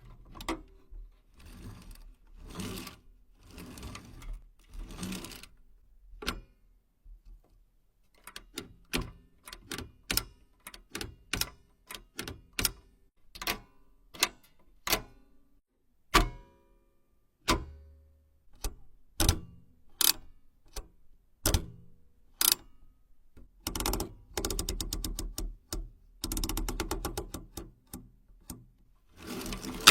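Old mechanical machine clacking in sharp, irregular strikes, with a few runs of rapid clicking in the last third and a bell-like ring at the very end.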